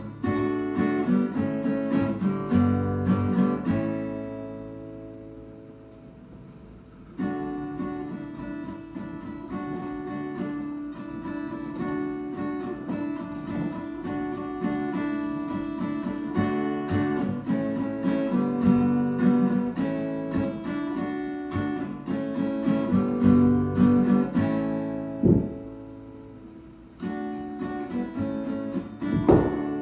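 Acoustic guitar strummed in chords. Twice a chord is left to ring and fade, about four seconds in and again some five seconds before the end, before the strumming starts up again.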